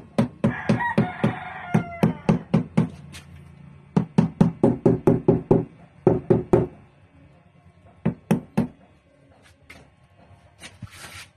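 Rubber mallet knocking on a freshly tiled sink counter in quick runs of sharp taps, about four a second, with a pause and three more taps later. A rooster crows once about half a second in.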